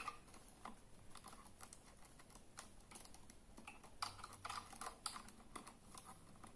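Faint, scattered small clicks and taps of fingers handling wires and the plastic switch box of a rechargeable LED torch while testing the switch contacts, with a short cluster of clicks about four seconds in.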